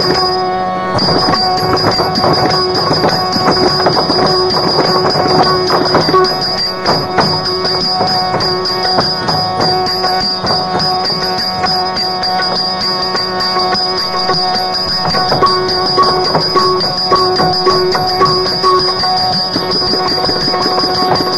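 Yakshagana background music with no singing: dense percussion strokes over a steady drone.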